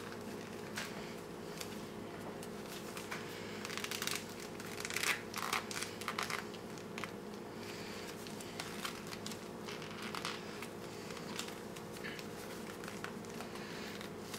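Soft rustling and light clicks of hands working the fabric coat onto a Hot Toys Joker figure, the cloth rubbing tight against the figure, over a steady low hum.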